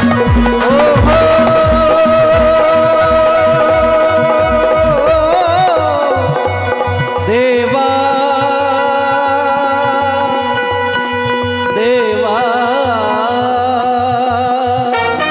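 Rajasthani folk devotional music played live: dholak drumming under a long, held melody line that wavers in pitch, with keyboards and harmonium.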